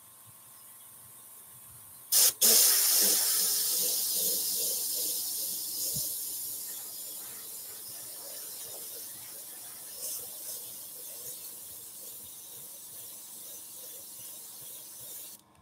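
Spraycraft SP50K dual-action airbrush spraying: a hiss of air that starts suddenly about two seconds in, is strongest at first, slowly fades, and cuts off near the end.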